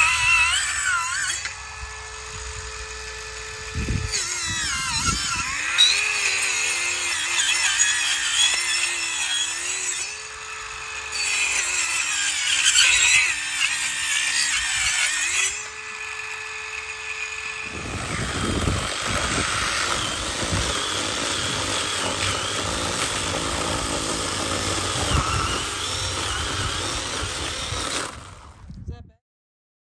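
Power saw cutting into a tree stump. The motor's tone holds a steady pitch while it runs free and sags and wavers as it bites into the wood. It stops suddenly near the end.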